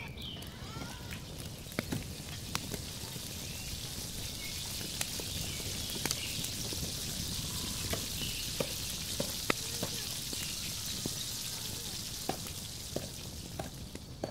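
Goat meat frying in a large metal pot over a wood fire, a steady sizzle that swells a little after the start and eases near the end. Scattered sharp clicks and knocks from the wooden spoon stirring the meat run through it.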